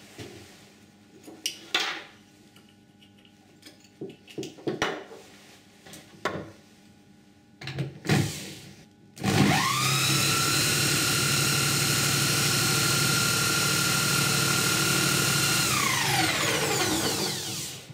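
Scattered clicks and knocks of wires and parts being handled, then an electric power drill spins a DIY permanent-magnet generator loaded with a 12 V 35 W bulb. The drill whines up to speed quickly about nine seconds in, runs at a steady high pitch, then winds down in a falling whine near the end.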